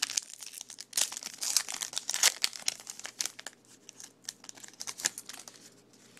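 Plastic foil trading-card pack wrapper being torn open and crinkled by hand: dense crackling through the first three seconds or so, then only occasional rustles.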